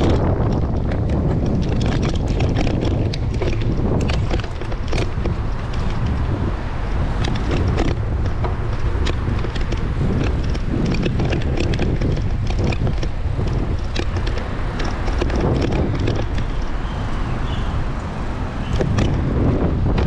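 Wind buffeting the microphone of a camera riding along on a moving bicycle: a steady low rumble, broken by many small sharp clicks and rattles.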